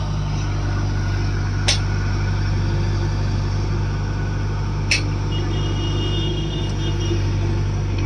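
JCB 3DX backhoe loader's diesel engine running steadily while the backhoe arm digs, with two sharp clicks, near two seconds and near five seconds in.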